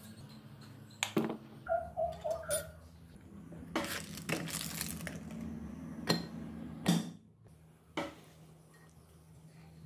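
Hand tools and metal parts being handled on a workbench: a run of sharp knocks and clinks with a few short ringing notes about two seconds in and a brief rushing noise in the middle, over a steady low hum.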